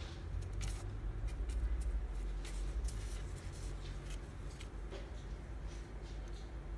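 Scattered light scratching and rustling ticks, irregular and several a second, over a low steady rumble, as a kitten paws and rubs at catnip.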